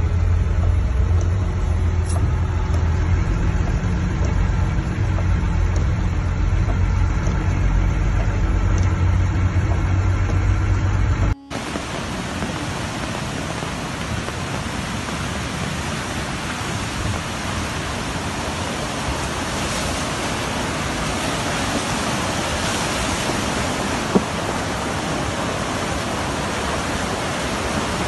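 Low rumble of a car heard from inside the cabin as it drives through a flooded street. After a sudden cut about eleven seconds in, a steady hiss of heavy rain and rushing floodwater takes over, growing slightly louder toward the end, with one sharp click near the end.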